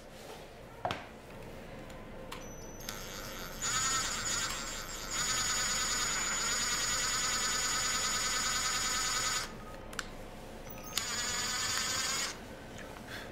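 Cordless drill motor whining as it bores pilot holes into a wooden board, in three runs: a short one about four seconds in, a long steady one of about four seconds, and another short one near the end.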